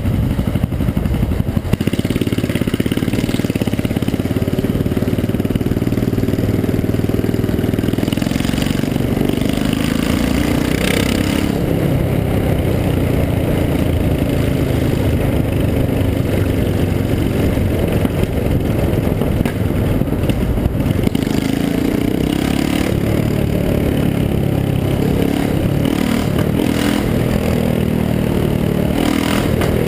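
Yamaha XT660R's single-cylinder engine rumbling loud through an opened-up exhaust as the bike rides, its pitch rising and falling with the throttle.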